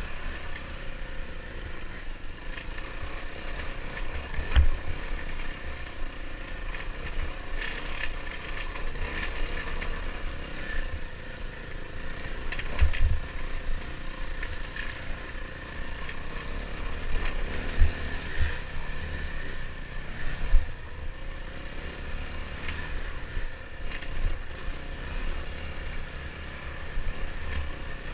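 Dirt bike engine running steadily while riding a dirt trail, with a few short thumps along the way.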